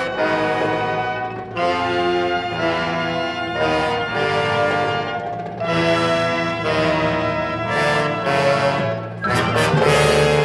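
Orchestral music led by brass, playing a series of held chords that change about once a second, growing louder near the end.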